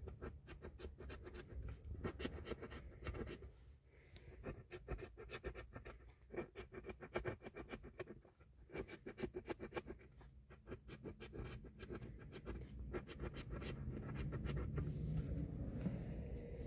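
A coin scraping the silver coating off a scratch-off lottery ticket in runs of quick, rasping strokes, with brief pauses between runs.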